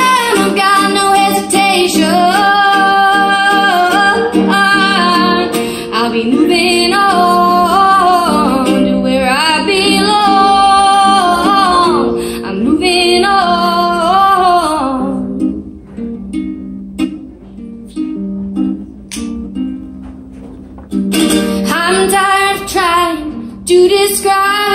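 A woman singing live through a PA, accompanying herself on a strummed ukulele. The voice drops out about 15 seconds in, leaving a quieter plucked passage, and comes back in about 21 seconds in.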